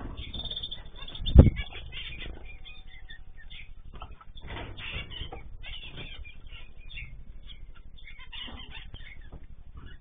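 Small cage birds in an aviary (finches, canaries, cockatiels) chirping and calling in short bursts, with one loud thump about a second and a half in.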